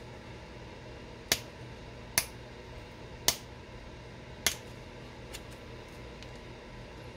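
Four sharp clicks about a second apart, then two fainter ones, of flakes snapping off a stone point as it is knapped, over a steady low hum.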